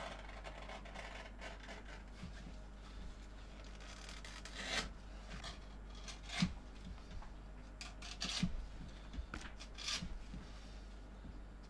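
Curved-top leather knife slicing through tooling leather as an insole is cut out: a low scraping with a few sharper cutting strokes a second or two apart.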